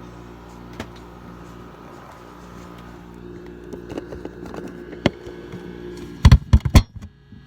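LG 5,000 BTU window air conditioner running on low cool with a steady hum. About six seconds in, a quick burst of loud knocks and clatter.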